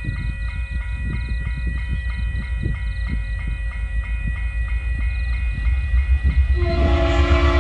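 A level-crossing warning bell rings about twice a second over the low rumble of TasRail 2050-class diesel locomotives hauling a coal train, the rumble growing louder as they approach. Near the end the lead locomotive's horn sounds, a steady chord of several tones.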